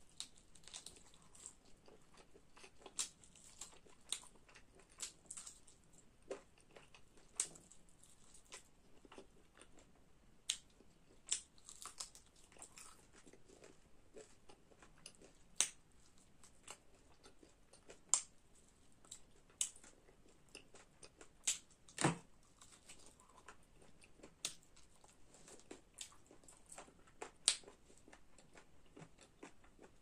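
Close-up eating of a chicken leg: biting, tearing and chewing the meat, with irregular sharp mouth smacks and clicks about once a second. The loudest click comes about two-thirds of the way through.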